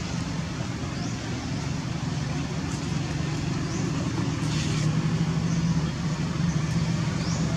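Steady low motor rumble with a hum and an even hiss, with a few short, rising high chirps over it.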